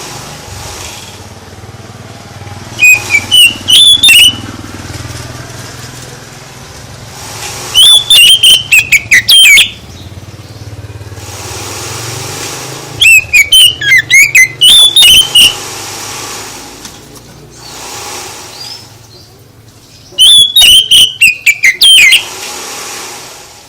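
Songbird singing loudly in four separate phrases, each about two seconds of quick whistled notes jumping up and down, with pauses of a few seconds between them.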